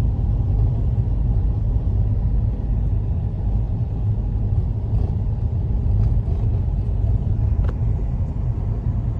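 Blizzard wind buffeting the microphone: a steady low rumble, with a few faint clicks in the second half.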